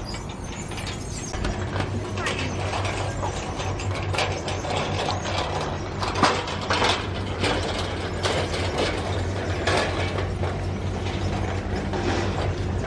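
Red metal flatbed platform cart rattling and clattering as it is wheeled over a concrete floor, over a steady low hum.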